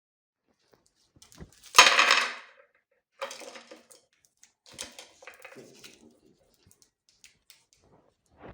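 Hard sweets and lollipops clattering against metal in a few irregular bursts, the loudest about two seconds in. No grinder motor is running.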